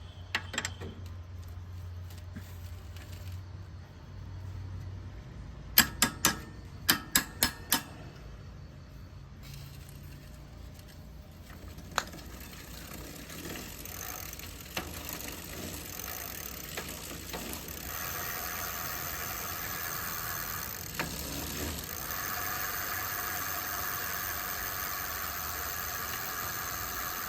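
Bicycle repair sounds: a quick run of about six sharp metallic clicks, a single click a few seconds later, then a steady whirring rattle that sets in about two-thirds of the way through, as of the bike's drivetrain being spun.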